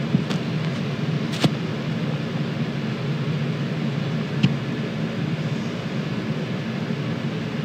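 Steady background noise, a low hum under an even hiss, with three faint clicks, the plainest about a second and a half in.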